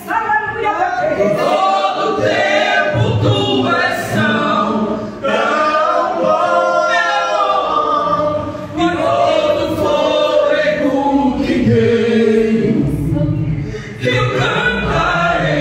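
A woman singing a Portuguese worship song into a handheld microphone, amplified through a PA speaker. She sings in long phrases with short breaks between them.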